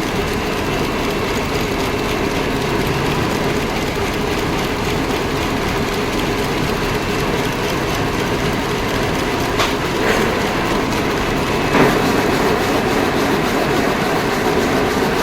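A freshly repaired machine running steadily after its broken 'ghoda' part was replaced, giving a fast, even clatter, with a few sharp clicks around ten and twelve seconds in.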